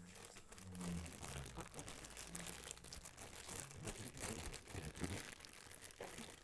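Faint crinkling and rustling of packaging being handled, with scattered small clicks and knocks.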